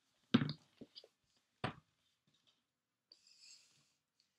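A few knocks and thumps on a wooden floor, the loudest about a third of a second in and another sharp one about a second and a half in, as a child shifts about and handles bottles. A brief soft rustle follows later.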